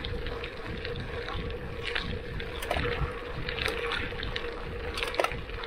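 Gravel bike's tyres rolling fast over a dirt road, a steady rushing rumble broken by scattered crackles and rattles from the bike. Wind buffets the action camera's microphone, and a faint steady hum sits underneath.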